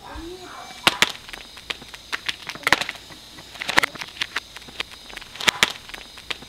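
A hand tool striking hard, dry soil while digging a planting hole: sharp knocks, often two or three close together, about every second or two.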